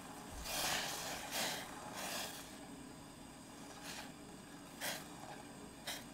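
Silicone spatula stirring and scraping milk in a metal saucepan: soft rasping strokes, three close together in the first two and a half seconds, then shorter ones about four, five and six seconds in, over a faint steady hiss from the gas burner.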